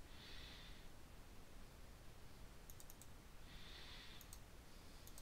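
Faint computer mouse clicks over near-silent room tone: a quick cluster about two and a half seconds in, then a double-click a little after four seconds and another click near the end.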